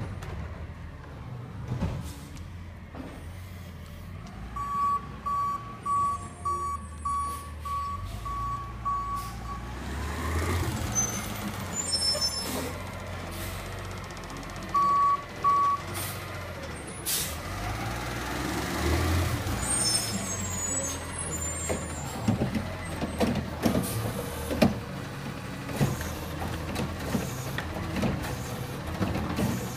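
Diesel engine of a side-loading yard-waste garbage truck running and revving as it backs up and pulls away, with its reversing alarm beeping about twice a second for several seconds starting around 4 seconds in and twice more around 15 seconds. A short hiss of air, typical of the truck's air brakes, comes around 17 seconds.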